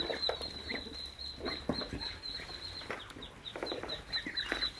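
Farmyard poultry clucking and giving short calls while feeding, over a steady, fast, high-pitched chirping in the background.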